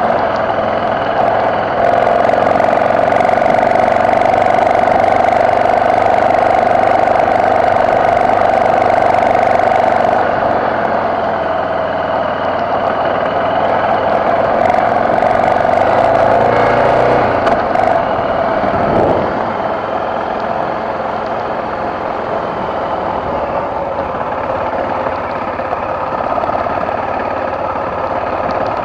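BMW F650GS motorcycle engine running steadily on an off-road climb. Its pitch holds steady, then falls away about two-thirds of the way through, and it runs a little quieter after that.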